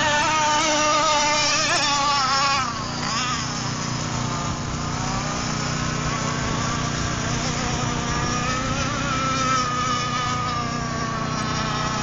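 Engine of a radio-controlled racing speedboat running at speed, a high buzzing whine whose pitch wavers and glides as the boat runs the course. It is louder for the first couple of seconds, then falls back a little as the boat moves away.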